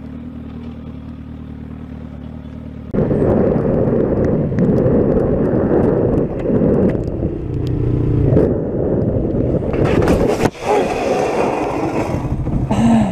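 Motorcycle engine running steadily, then from about three seconds in the louder noise of a motorcycle riding on a wet road, with wind on the helmet-camera microphone. Near the end a sharp knock and a scraping hiss as the motorcycle goes down and slides on the wet asphalt.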